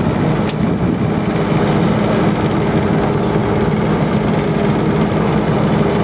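Small motor boat's engine running steadily while the boat cruises, a constant low hum.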